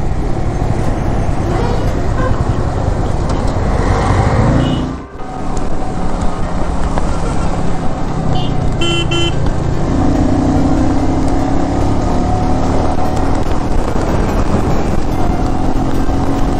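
Motorcycle riding on a road: steady engine and wind-rush noise, with a short horn honk about nine seconds in. The sound dips out briefly about five seconds in.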